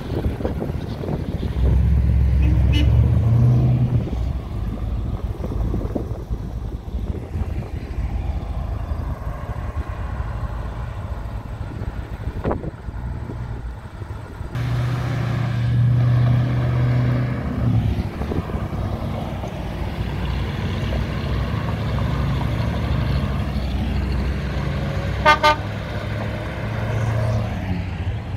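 Cars driving past on a street, their engines running, with a louder vehicle going by about two seconds in and again around fifteen seconds. Near the end a car horn gives one short toot.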